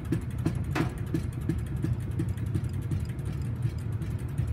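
Centrifugal casting machine spinning its arm inside a metal tub: a steady low mechanical hum with a regular tick about three times a second, and one sharper click about a second in.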